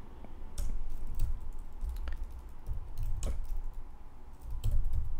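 Typing on a computer keyboard: a handful of separate keystrokes at uneven intervals.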